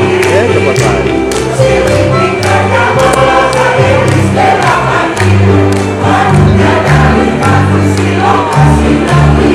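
A mixed choir of men and women singing in parts, with electronic keyboard accompaniment holding sustained bass notes underneath.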